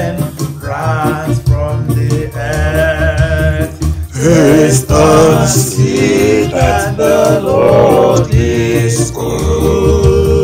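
A man singing a slow psalm melody with vibrato on the held notes, accompanied by a digital keyboard playing piano chords and steady bass notes.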